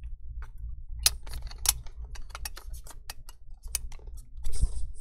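Quick irregular clicks and taps, several a second, of fingers and a plastic prying tool handling the newly fitted CPU fan inside an opened MacBook Air A1466. There is a short rustle near the end.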